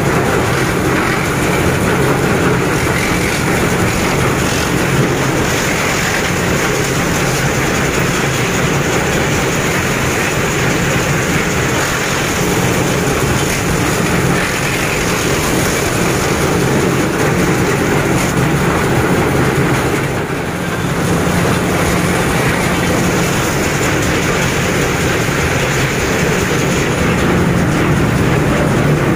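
Wood crusher running, shredding wood into sawdust: a loud, continuous mechanical noise over a steady low motor hum, dipping briefly about twenty seconds in.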